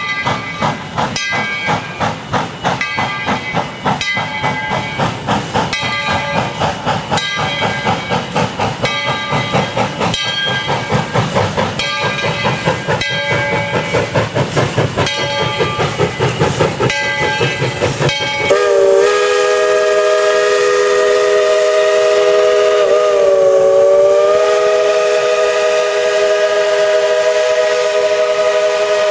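Steam locomotive working, its exhaust chuffing at about two beats a second over a steady hiss. About two-thirds of the way in, a long multi-chime steam whistle starts suddenly and is held to the end, with a slight waver partway through.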